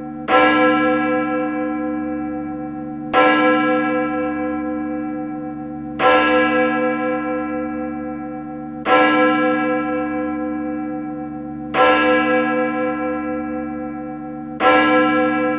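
A single church bell tolling slowly at the same pitch, struck six times about every three seconds, each stroke ringing on and fading before the next.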